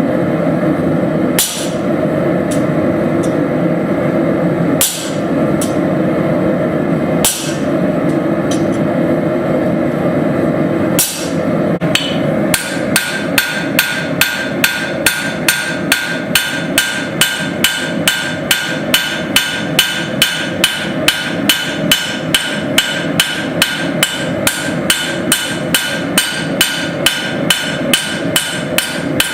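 Hammer striking steel on an anvil while forging a cross blank: a few single blows over the first twelve seconds, then steady hammering at about two blows a second with the anvil ringing. A steady roar runs underneath.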